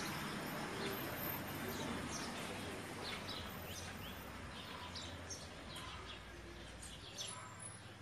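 Small birds chirping, many short high calls one after another, over a steady outdoor background hum.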